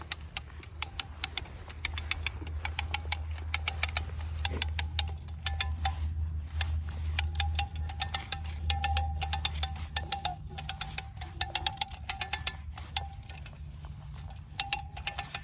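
Hand-cranked ratchet winch tightening a pull line on a dead pine tree: runs of rapid pawl clicks as the line is tensioned before felling. A low rumble runs under the clicks until about two-thirds of the way through.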